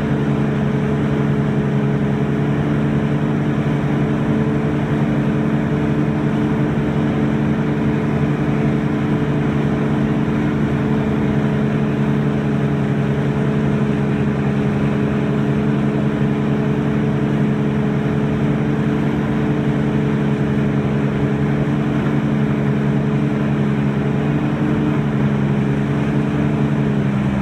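Wake boat's inboard engine running steadily at wakesurfing speed, a constant drone, over the rush of water churned up in the wake.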